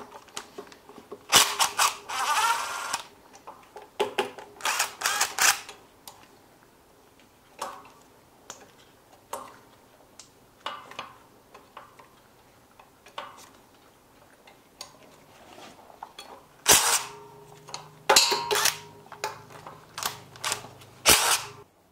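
Cordless drill run in short bursts, spinning nuts off the studs along the oil pan flange of a Rolls-Royce Meteor V12, with sharp clicks and clanks of the socket and nuts on metal. The bursts come in groups, a couple early on and several more near the end.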